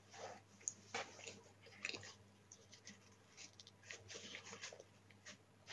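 Near silence: faint scattered clicks and rustles over a low steady hum.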